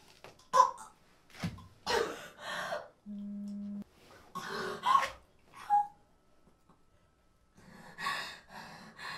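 A smartphone vibrating once, a short steady low buzz about three seconds in, marking an incoming message. Around it come several short, sharp breaths and gasps from a person.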